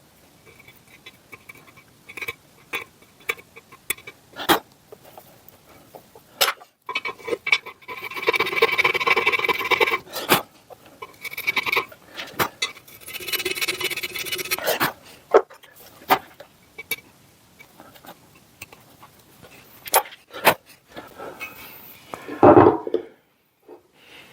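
Hand work on the raised lettering of a drill press head casting: scattered clicks and taps of tools, with two spells of scraping a few seconds long, about a third of the way in and just past halfway. A louder knock comes near the end.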